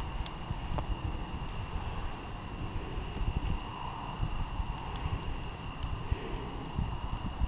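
Wind buffeting the microphone in uneven low rumbles, over a steady high-pitched insect trill.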